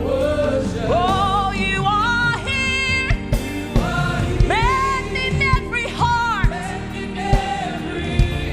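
Live gospel worship music: a singer's long, gliding vocal lines with vibrato over a band's sustained chords and bass, with a few drum hits.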